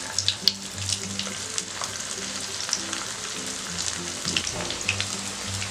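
Vegetable Manchurian balls deep-frying in hot oil in a steel wok, being fried a second time to crisp them: a steady sizzling hiss with scattered crackling pops.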